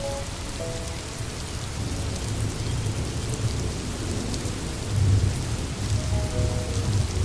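Steady rain falling, with a low rumble of thunder that swells about five seconds in.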